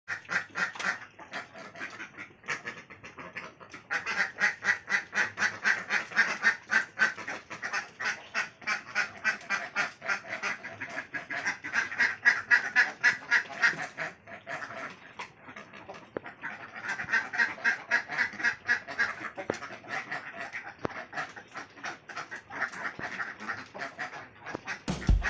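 Ducks quacking in a fast, steady run of short calls, several a second, with brief pauses.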